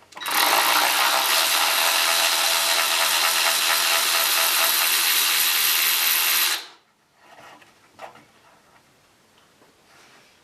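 Electric power tool, drill type, running steadily at an even pitch for about six seconds, then stopping abruptly.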